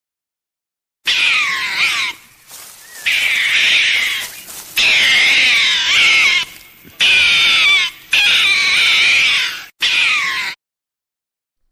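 An animal crying loudly in long, wavering high-pitched calls, in several stretches broken by abrupt short gaps, starting about a second in and cutting off sharply near the end.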